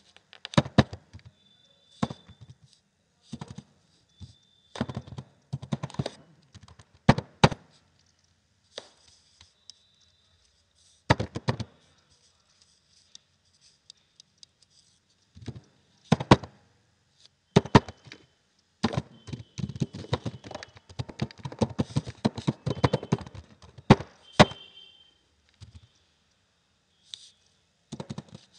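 Computer keyboard being typed on: bursts of key clicks separated by pauses of a few seconds, with the longest, densest run of typing about two-thirds of the way through.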